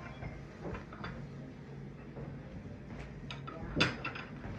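China plates clinking as a stack of porcelain dinnerware is handled: scattered light clinks, with a sharper one near the end.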